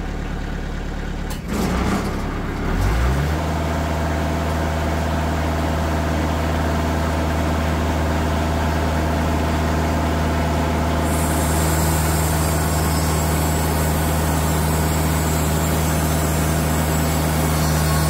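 A TimberKing 2020 bandsaw sawmill's engine speeds up with a knock and a rising pitch about two to three seconds in, then runs steadily, driving a Kasco bandsaw blade that the sawyer judges dull. About eleven seconds in a higher hiss joins as the blade begins cutting into the log.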